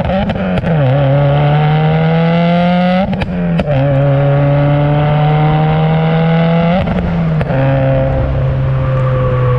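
Stage 2 tuned 2015 Subaru WRX's turbocharged flat-four engine and exhaust pulling through the gears. The engine note climbs slowly, then drops three times at gear changes. Each shift brings a brief burst of exhaust pops and crackles.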